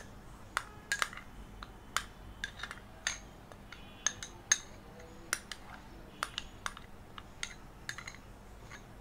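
Metal spoon scraping and clinking against a small glass bowl while thick mustard sauce is scooped out onto a glass plate: a string of irregular light clinks and taps.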